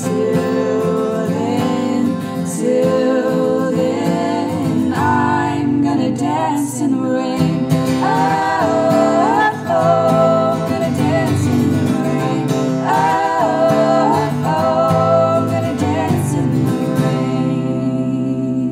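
Acoustic guitar strummed, with sung harmonies over it; the last chord rings and begins to fade near the end.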